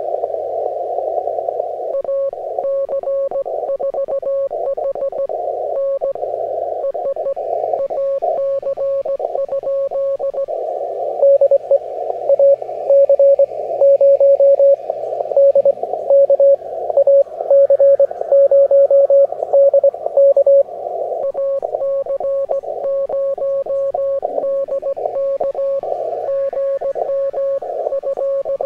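Morse code (CW) heard on an amateur radio receiver tuned to the 20-metre band: a single pitched tone keyed in dots and dashes over a steady hiss of band noise. From about 11 seconds in to about 20 seconds, a much stronger station sends, louder than the rest.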